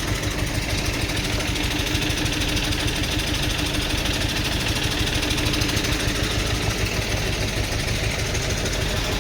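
Steady engine rumble, like heavy machinery idling, with a faint hum that swells and fades over a few seconds.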